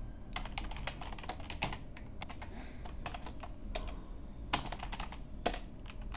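Typing on a computer keyboard: irregular key clicks, with a couple of louder keystrokes near the end.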